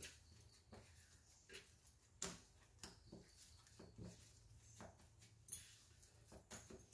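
Faint, irregular soft taps and clinks of hands kneading rice-flour dough in a stainless steel plate, over a low steady hum.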